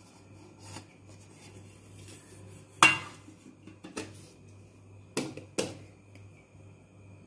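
Stainless steel bowl and plate clanking together as the bowl is turned upside down onto the plate and handled. There is one loud clank about three seconds in, a lighter one a second later, then two more half a second apart.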